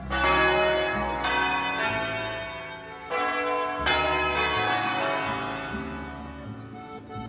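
Church tower bells ringing an uneven peal: bells struck in clangs at irregular intervals, about four times in the first four seconds, each leaving a long ringing hum that fades away.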